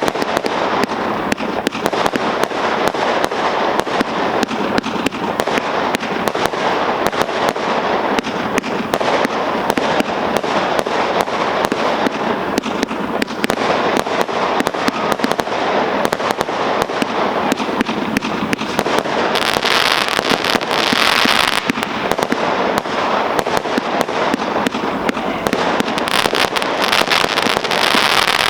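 GBV-Weco G-Force 6000 firework compound, a 12-battery cake of 432 shots, firing continuously: a dense, rapid barrage of shots. There are louder, hissier stretches about twenty seconds in and again near the end.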